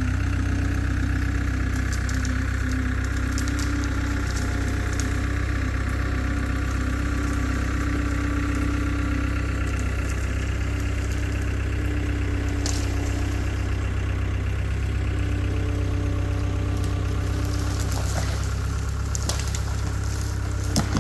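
Diesel engine of a CAT 252B skid steer running steadily, with a few short sharp cracks near the end.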